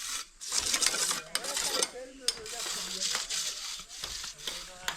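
Rapid, irregular clinking and scraping of hand work at a construction site, with people's voices in the background.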